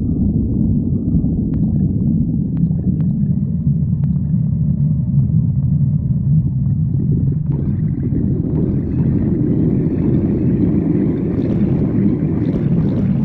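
Stomach growling: a long, continuous low rumble, with higher, rougher sounds joining it about halfway through.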